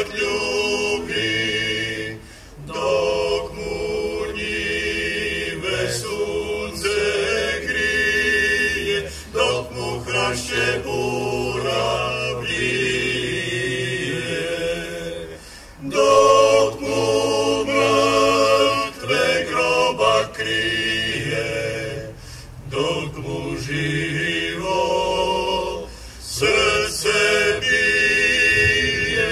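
A choir singing a cappella, holding long notes in phrases broken by brief pauses.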